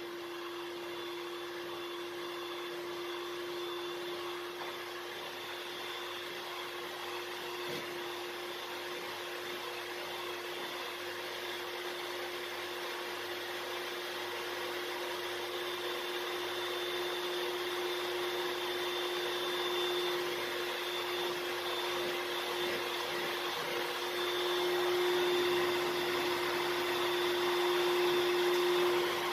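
Electric hand mixer running steadily, its beaters whipping cream for a cream-cheese filling in a stainless steel bowl: a steady motor hum with a whirring hiss, getting a little louder over the last few seconds.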